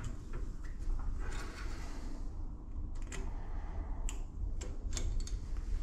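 Hand-turned valve-seat cutter on a Mira Centronic machine cutting the 45-degree angle into a newly fitted lead-free valve seat in a Ford Pinto cast-iron cylinder head: scattered light metallic clicks and ticks over a low steady hum.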